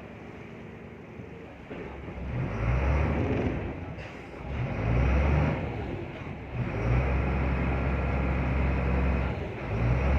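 A boat's engine, low at first, revs up about two seconds in, surges twice, then runs steadily under power as the boat pulls away from the quay.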